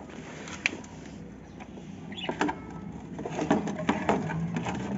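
Clicks and light rattles of a wire-mesh bird cage and the items being handled and fitted inside it: one sharp click under a second in, then a busier run of knocks and rattles about halfway through. A low steady hum comes in near the end.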